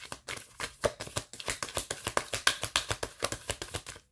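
A deck of oracle cards being shuffled by hand: a fast, uneven run of card-on-card flicks and slaps, many to the second.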